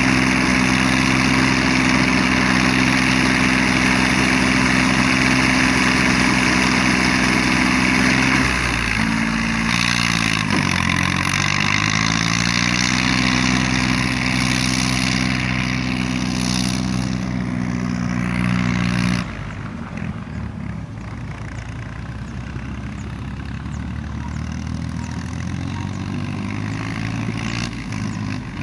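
Yanmar YM3000 tractor's three-cylinder 3T84 diesel running under load while powering a round baler through rice straw. Its pitch sags and recovers about ten seconds in, and about two-thirds through the sound drops suddenly to a quieter level, with the engine still running.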